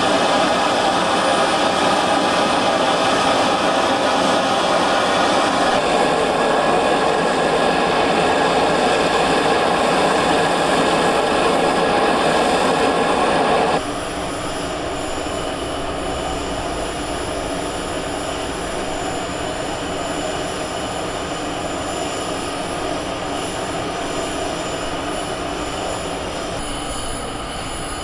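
Steady aircraft turbine noise on a flight line: a loud roar with high, steady whines on top. It changes suddenly about halfway through to a quieter, deeper version.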